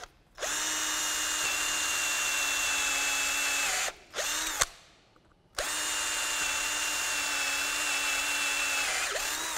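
Cordless drill spinning a stepped drill bit, enlarging a hole in the e-scooter's rear frame. It makes two long runs of steady motor whine of about three seconds each, with a short burst between them about four seconds in.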